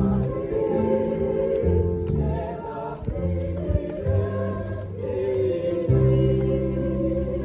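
A choir singing the entrance hymn for a Catholic Mass, with long held low notes beneath the voices.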